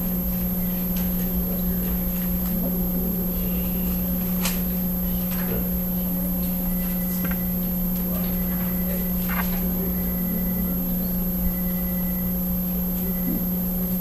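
Steady low electrical hum throughout, with a few faint rustles and taps as Bible pages are turned at the pulpit.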